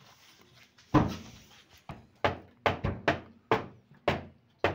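A wooden cooking stick knocks against the side of an aluminium pot as stiff ugali is stirred and mashed. There are about eight sharp knocks, starting about a second in, and the first is the loudest.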